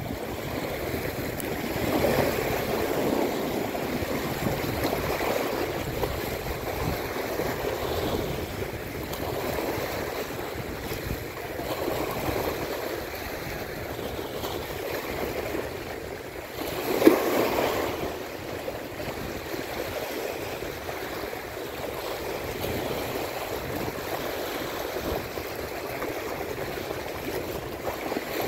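Small sea waves washing over shore rocks, swelling and easing every few seconds, with one sharper, louder splash about two-thirds of the way through.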